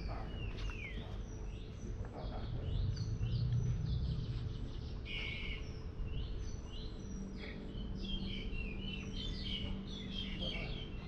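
Several small birds chirping and calling in quick, short notes, overlapping throughout, over a low steady background rumble.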